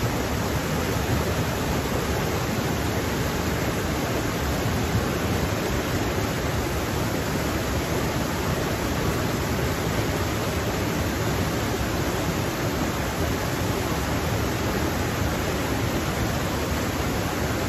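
Rocky stream rushing and cascading over boulders in small falls, a steady, even rush of water.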